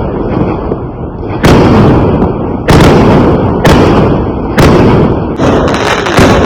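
Fireworks exploding: a string of loud bangs about a second apart, each with a rolling tail that dies away, over a constant low rumble.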